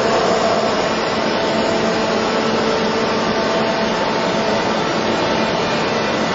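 Steady whir and hiss of running workshop machinery, with a low hum and a few steady tones held under it.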